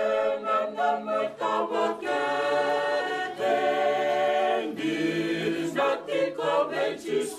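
Choir of several voices singing in harmony without instruments, with short clipped notes before and after longer held chords.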